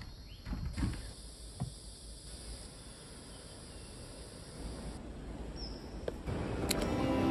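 Quiet ambient background noise with a few soft thumps in the first two seconds; music fades in and grows louder near the end.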